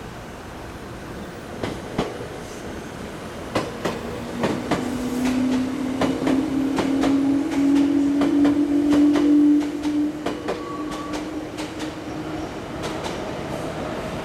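Meitetsu train passing: its wheels knock over rail joints in an uneven string of clacks, under a droning tone that swells, rises slightly in pitch and is loudest about two-thirds of the way in before fading.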